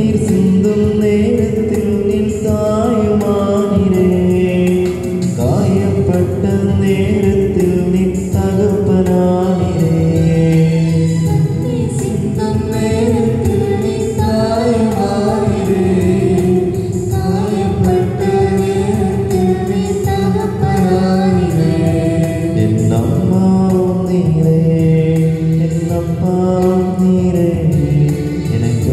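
A devotional hymn sung to musical accompaniment, continuous and steady in level, with long held notes.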